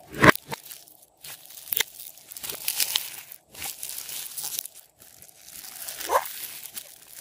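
Hands squeezing and kneading glossy slime full of foam beads: wet squishing and crackling in uneven bursts, with sharp pops of trapped air, the loudest just after the start, and a squelch about six seconds in.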